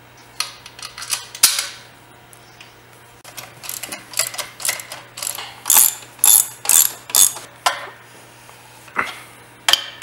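Ratchet wrench clicking and metal tools clinking and clattering while the pump bracket bolts of an oil-free air compressor are tightened. The clicks are sparse at first, then come in quick runs from about four seconds in.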